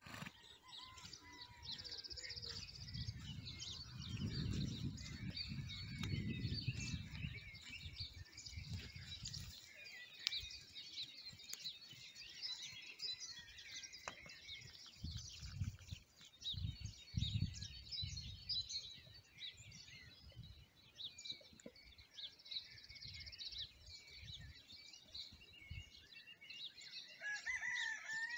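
Small birds chirping throughout, with a rooster crowing near the end and a fainter crow at the very start. Bouts of low rumble come and go, heaviest from about four to ten seconds in.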